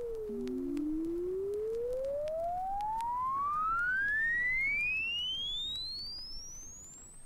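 Electronic sine-wave tone sweeping in pitch to stand for the electromagnetic spectrum: it bottoms out about a second in, then glides steadily upward, fading as it climbs. The rise is the return from low-energy radio waves back up toward high-energy gamma rays.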